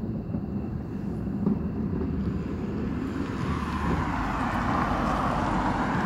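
Wind buffeting the microphone with a low rumble. About halfway through, a car's tyre-on-road hiss starts to build as it approaches, growing louder toward the end.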